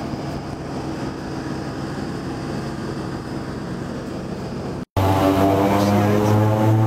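A steady mechanical hum with a few low tones. About five seconds in, a hard cut to the much louder drone of a Fokker 50's turboprop engines and propellers heard from inside the cabin at take-off power, its pitch rising slightly.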